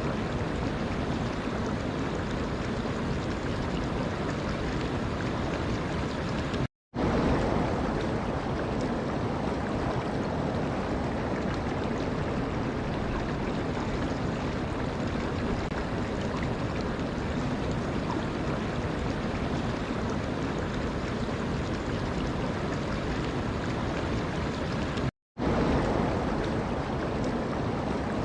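Steady rushing of running water with no pitch or rhythm, cutting out to silence for a split second twice, about 7 and 25 seconds in, then resuming.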